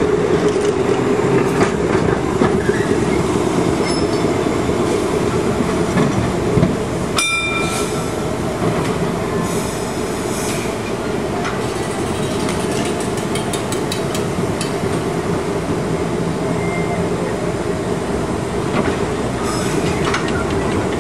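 Electric streetcars rolling slowly along the tracks with a steady rumble and motor hum. About seven seconds in there is a single sharp metallic ding. Later comes a quick run of clicks, typical of wheels passing over rail joints.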